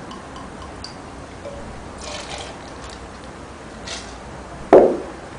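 Cherry brandy liqueur poured from a bottle into a metal jigger and tipped into a steel cocktail shaker: a soft trickle of liquid. Near the end comes a single loud knock.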